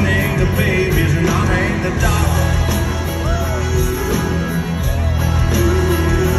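Live country band playing, recorded from the audience: a steady drum beat and bass under a melodic line that bends up and down in pitch.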